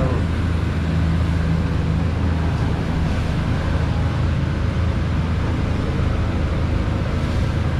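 Steady low rumble with a hiss over it: the running noise of a restaurant kitchen's large cooking stations.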